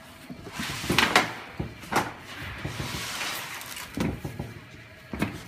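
Knocks and scraping from the parts of an auditorium chair's upholstered backrest and plastic shell as they are handled and clipped together by hand. A series of sharp knocks, the loudest about a second in, with a rustling scrape between them.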